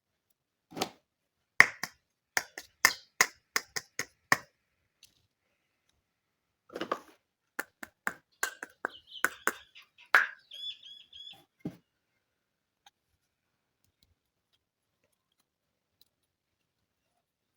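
Small plastic toy pieces clicking and tapping together as they are handled, in two clusters of sharp clicks, with a short run of rapid high chirps a little after the middle.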